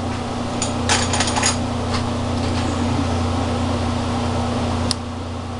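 Light clicks and taps of small craft scissors handling a strand of pearl beads, a quick cluster about a second in and one sharp click near the end, over a steady low hum.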